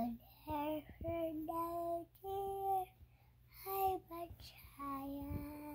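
Young child singing a wordless tune softly, a string of short held notes with brief pauses between them.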